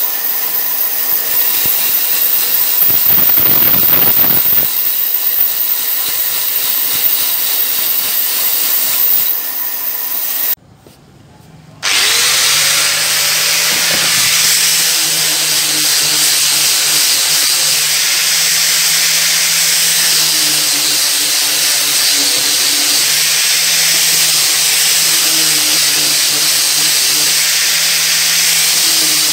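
A band saw cuts a round wooden disc with a dense, steady rasp for about ten seconds. After a brief break, a handheld angle grinder fitted with a sanding pad spins up with a rising whine and then runs at a steady pitch while sanding wooden discs.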